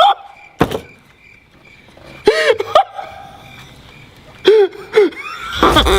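A sharp click, then two short wordless sounds from a person's voice, each rising and falling in pitch.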